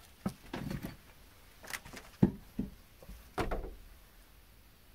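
A handful of separate knocks and clatters from someone moving through a cramped camper bathroom and handling its fittings, the sharpest just over two seconds in.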